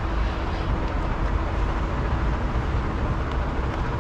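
Steady low rumble of idling diesel vehicles and road noise, even throughout with a faint steady hum and no distinct knocks.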